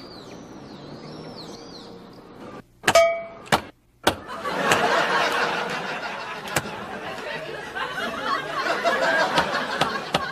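A quiet stretch with a few short high chirping tones, then, after a brief drop to silence about four seconds in, a group of people laughing and chattering.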